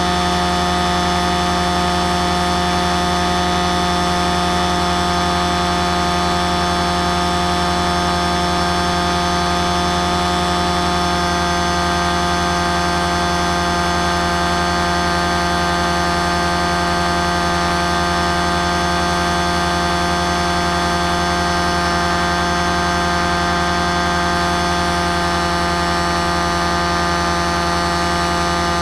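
Motor of a small aircraft heard through its own onboard camera, running steadily at a constant pitch, with a slight drift in pitch from about ten seconds in.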